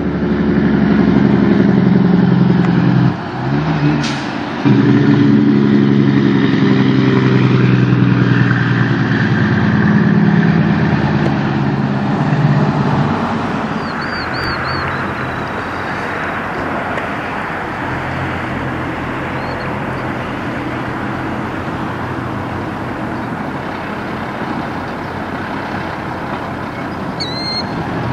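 Kenworth semi truck's diesel engine pulling under load, dropping briefly about three seconds in and then picking up again. About thirteen seconds in it settles to a lower, steady running sound.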